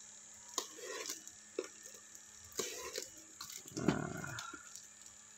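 Utility knife slitting the packing tape and plastic wrap of a parcel: a series of short scratchy cuts and crinkles, with a louder, duller rustle about four seconds in as the parcel is turned over.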